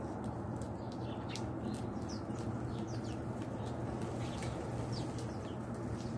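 House sparrows chirping: a quick run of short, high chirps, two or three a second, over a steady low hum.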